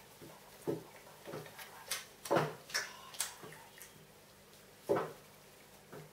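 A puppy eating raw minced steak from a hand, irregular wet smacking and licking clicks of its mouth, loudest about two and a half seconds in and again near five seconds.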